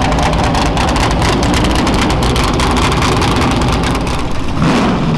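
Formula 5000 racing car's 5-litre V8 engine idling loud and close, with a rapid, rough crackle, and a brief rise in revs near the end.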